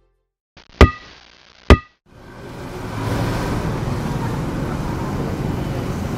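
Two sharp knocks with a short ringing tone, about a second apart. From about two seconds in comes the steady noise of street traffic.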